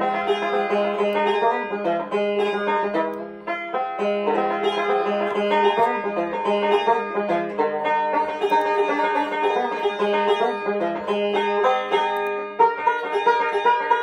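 Instrumental background music: a quick picked string-band tune with many rapid notes over a held low note.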